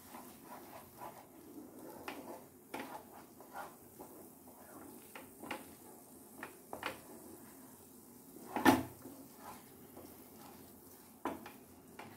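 Wooden spatula scraping and tapping against a non-stick frying pan while stirring a thick milk-solids paste: soft, irregular scrapes and clicks, with a sharper knock about two-thirds of the way through.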